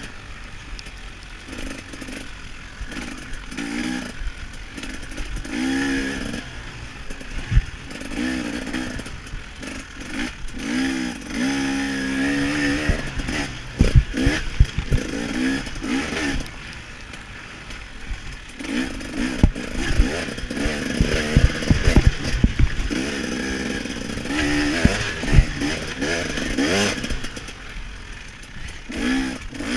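KTM 300 XC-W two-stroke engine revving up and falling back again and again under race riding, heard from on the bike. Sharp knocks and clatter come through as the bike hits bumps, thickest in the middle and latter part.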